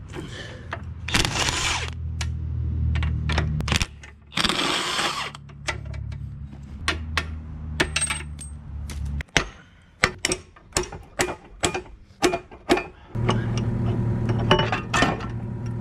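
Cordless impact wrench running on the nut of the bucket pin's retaining bolt. Then about a dozen sharp hammer blows on steel, about three a second, driving the bucket pin out. Near the end a steady low hum starts.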